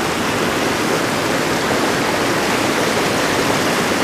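Mountain creek's small waterfall, white water pouring over rocks in a steady, loud rush.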